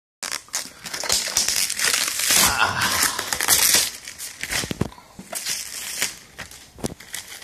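Clear plastic bag crinkling and crackling as it is pulled off a PC case. It is loudest over the first four seconds, then goes on more quietly with scattered crackles.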